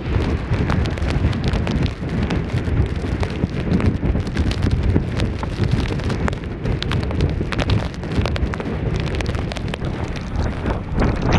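Strong blizzard wind buffeting the microphone: a continuous low rumble with many small irregular crackles and pops.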